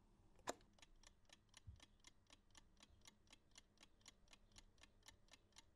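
Faint click as the button of a mechanical analog chess clock is pressed about half a second in, then the clock ticking steadily, about four ticks a second.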